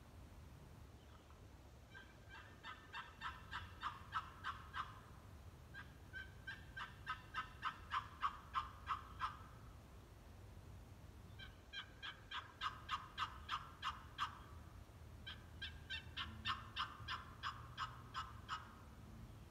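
Wooden turkey box call run as four series of rapid hen yelps, each a quick, even string of raspy notes lasting about three seconds, with short pauses between them.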